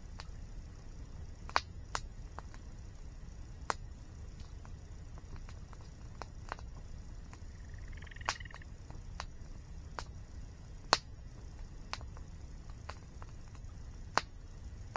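Wood campfire crackling, with sharp pops every second or two and a few louder snaps, over the steady low rumble of a waterfall. A short, faint bird chirp about eight seconds in.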